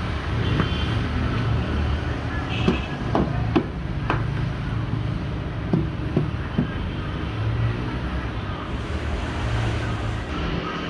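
Steady low rumble of road traffic, with about eight sharp taps and knocks scattered through the first seven seconds from hand-tool work on lead battery plates.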